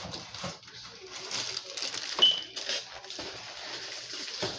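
Rubbing and wiping strokes on a glass refrigerator shelf, with a sharp clink and a short high squeak a little over two seconds in.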